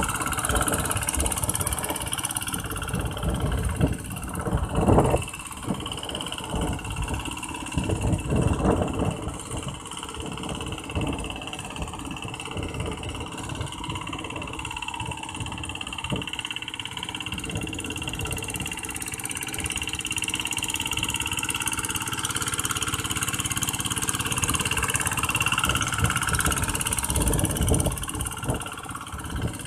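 Two-wheel hand tractor's single-cylinder diesel engine running steadily under load while it tills a flooded rice paddy, louder a few times in the first ten seconds.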